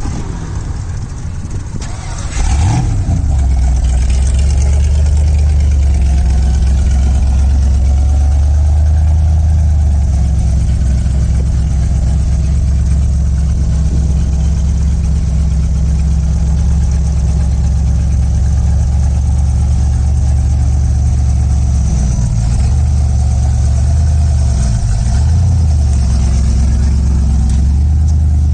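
Ford V8 mounted in the bed of an old Ford pickup, running loud. It picks up sharply about two seconds in, then holds a steady idle, with a few brief throttle blips near the end.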